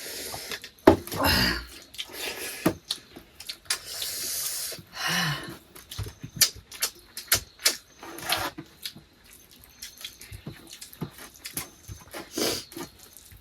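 Close-miked eating sounds of a mukbang: wet chewing and lip smacks over rice and egg curry, broken by a few short slurps.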